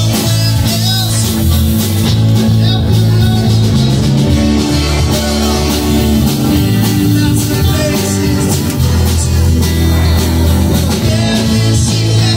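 Live blues band playing loud with electric guitars and drums, over a strong bass line that moves in steady steps.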